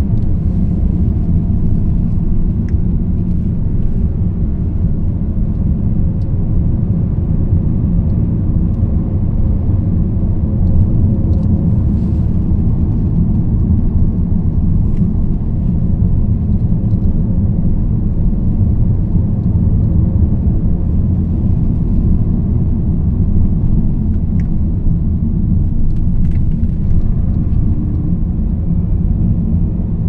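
Steady low rumble of a car's engine and tyres on a paved road, heard from inside the cabin, with a few faint clicks.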